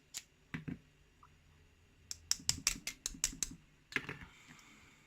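Light, sharp clicks and taps of a lock cylinder and its parts being worked to free a stuck driver pin held under strong spring pressure: a few single clicks, then a quick run of about ten in the middle, and one more near the end.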